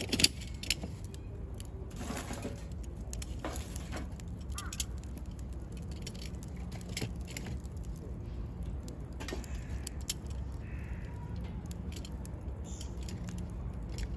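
Wood campfire crackling, with scattered sharp pops and snaps over a low steady rumble. A bird calls faintly a few times in the background.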